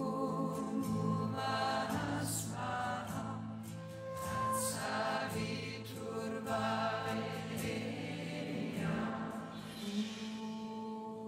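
Mantra chanting: voices singing phrases together over a steady low drone.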